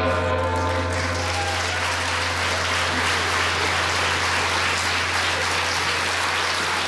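Studio audience applauding steadily. A brief held chord-like tone sounds at the start and fades within the first second.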